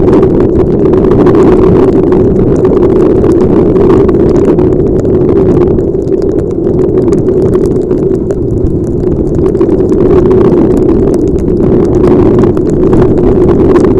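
Loud, steady wind and riding noise buffeting a motorcycle helmet camera's microphone in heavy rain, with faint ticks throughout and a slight easing in the middle.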